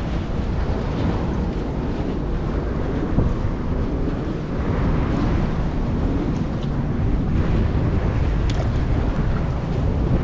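Wind buffeting the microphone: a steady low rumble, with a few faint clicks in the second half.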